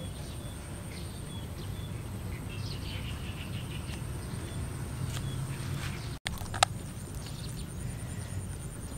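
Outdoor rural ambience: small birds chirping over a steady low rumble. One sharp click comes about two-thirds of the way through.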